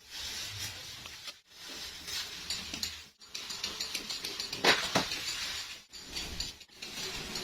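Stick welding arc crackling, a dense sizzle broken by four brief drops to silence.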